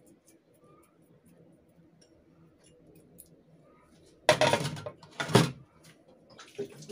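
Two loud, brief clattering knocks about a second apart, a little after the middle, over a faint low room hum, followed by a few lighter clicks near the end.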